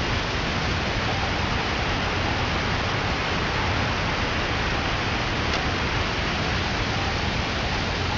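A steady, even rushing noise with no tones or rhythm in it, keeping the same level throughout.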